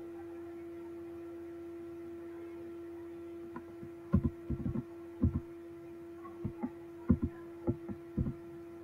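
A steady electrical hum throughout. About four seconds in, dull keyboard key taps begin in short, irregular runs as digits are typed.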